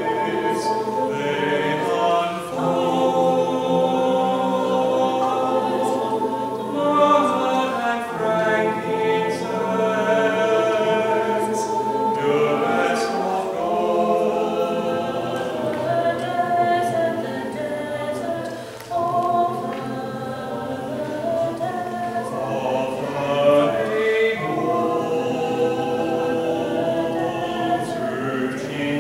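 Church choir of women and men singing together, several voices holding and moving between sustained notes.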